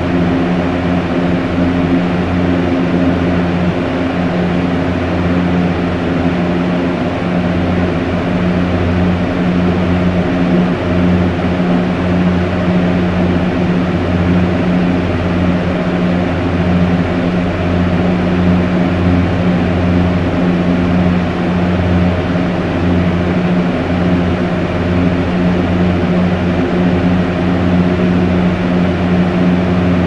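Fan running steadily: a low hum made of a few steady tones under an even rush of air.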